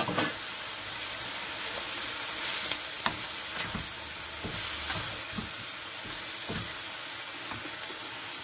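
Stir-fried chow mein sizzling steadily in a wok over a gas flame, with irregular scrapes and knocks of a wooden spatula as the noodles, chicken and vegetables are tossed.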